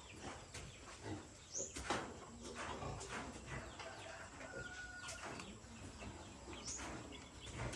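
Faint outdoor ambience of birds chirping, with scattered clicks and knocks and one short whistled note about halfway through.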